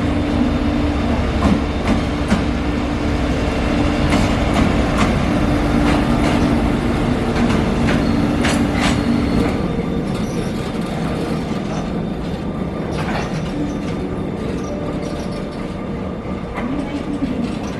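Freight train passing close by: loud, steady wheel-on-rail noise with repeated clacks over the rail joints, easing off slightly after about ten seconds.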